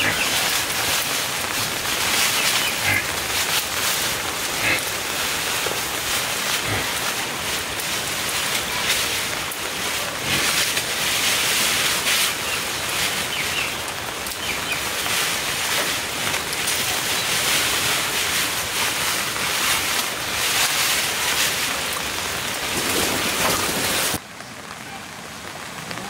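Steady rain falling, a dense even hiss that drops abruptly to a softer hiss about two seconds before the end.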